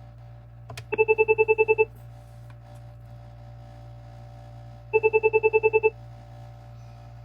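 Cisco IP phone ringing with its Chirp 2 ringtone: two bursts of rapid chirping beeps, about ten a second for roughly a second each, four seconds apart.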